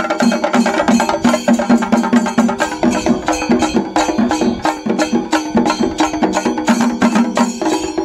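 Chendamelam: several Kerala chenda drums beaten with sticks in a fast, dense, unbroken rhythm, with ilathalam hand cymbals clashing along.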